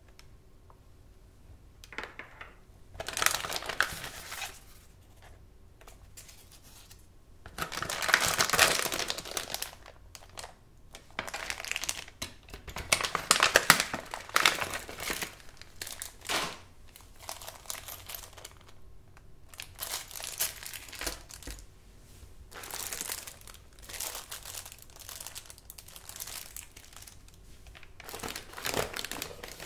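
Plastic packaging crinkling and rustling as hands open printed plastic pouches and unpack small accessories. It comes in irregular bursts with short quiet gaps between them.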